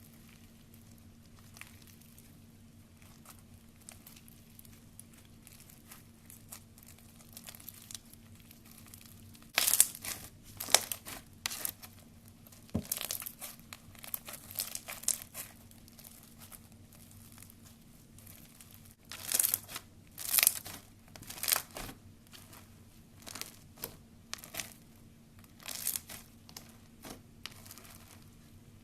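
Slime being handled, making crinkling, crackling pops in clusters: faint at first, louder from about ten seconds in.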